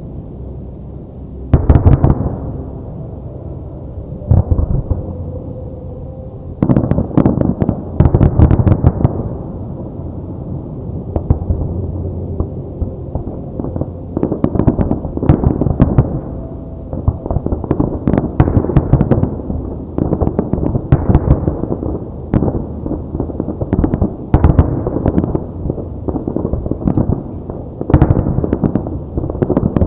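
Aerial fireworks shells bursting: a few separate booms in the first seconds, then a dense run of sharp bangs over a continuous low rumble.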